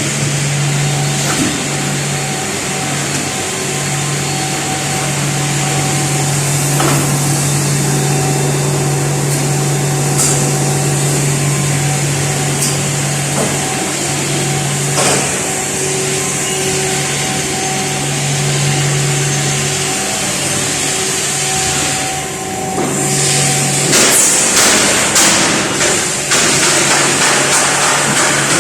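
Industrial machinery running steadily with a constant low hum, scattered single knocks, and louder rattling and clicking from about three-quarters of the way through.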